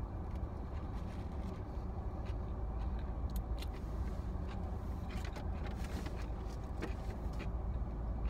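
Steady low rumble of a car, heard from inside, with a run of short crackles and clicks about three to seven seconds in.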